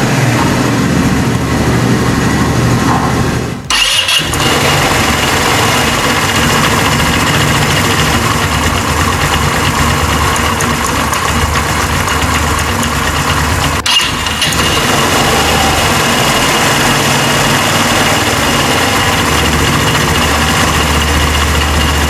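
Italika WS150 scooter's 150 cc single-cylinder four-stroke engine running at a steady idle just after being started, with two momentary breaks about four and fourteen seconds in. With the crankshaft, its bearings and the magneto replaced, it runs without the strange noises it had before the repair.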